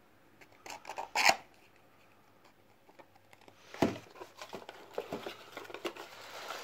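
Paper and a cardboard box being handled: a few short rustles and knocks about a second in, then a run of rustling and tapping from about four seconds in as a hand moves a paper insert and the manual about inside the small box.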